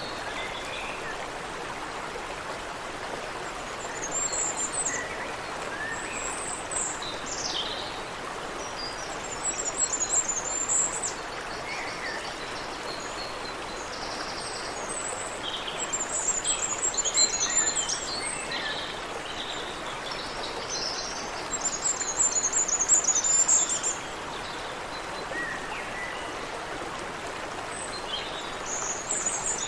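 Creek water running steadily, with songbirds singing over it in repeated bursts of high chirps and trills.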